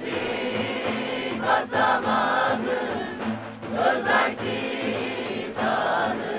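Mixed group of men and women singing a Turkish protest song together, over a steady acoustic guitar accompaniment.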